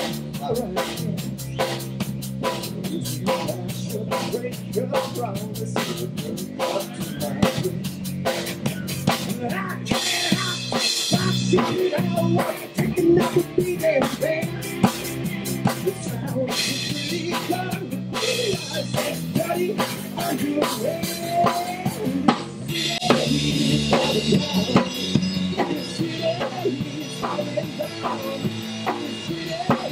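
Rock band playing: a drum kit keeps a steady beat under electric guitars and bass. Cymbals come in about ten seconds in and crash more heavily through the last third.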